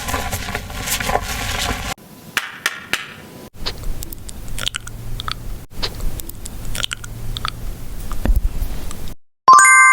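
Close-miked handling of skincare products: a dense rustling texture that cuts off about two seconds in, then scattered small clicks and taps. Near the end comes a sudden bright metallic ding that keeps ringing.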